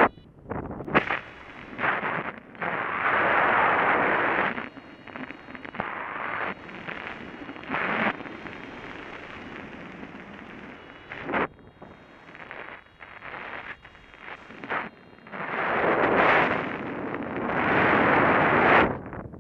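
Wind buffeting the microphone of a paraglider pilot's camera in flight, coming in uneven gusty surges with short sharp spikes, loudest about 3 to 4 seconds in and again in the last few seconds.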